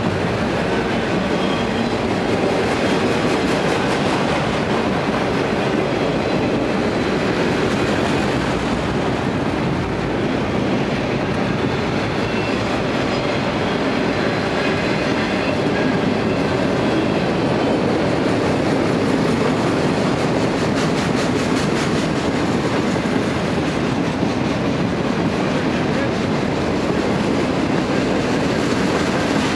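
Freight train of autorack cars rolling past: steady wheel-on-rail noise with clickety-clack from the cars' wheels over the track.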